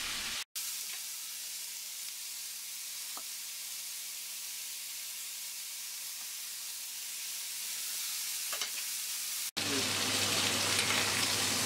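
Entrecôte steaks frying in a hot cast-iron grill pan, with a steady high sizzle. The sizzle grows louder near the end.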